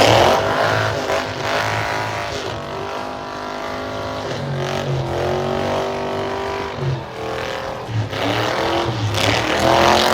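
Drag race car engine running at high revs, loudest at the start and again near the end; after the first loud moment its pitch falls away, as of a car passing.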